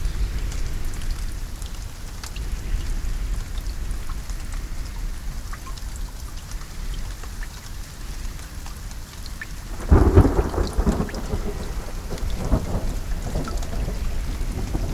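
Steady rain falling, with a low rumble underneath. About two-thirds of the way through, a sudden loud thunderclap breaks in, followed by rolling thunder that rumbles on to the end.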